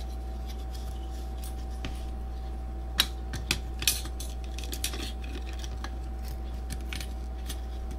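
Small hard clicks and taps of tiny plastic and metal action-camera parts being handled during reassembly, with a few sharper clicks around the middle, over a steady low hum.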